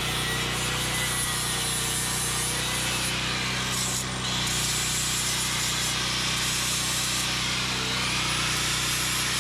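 Steady harsh metalworking noise from the repair of a snapped boat-trailer frame, with a constant low hum underneath; it cuts off abruptly near the end.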